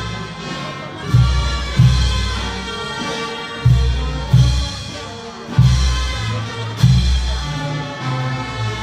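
A procession band playing: wind instruments hold a sustained melody over heavy bass-drum beats that fall at a slow, uneven pace, often in pairs.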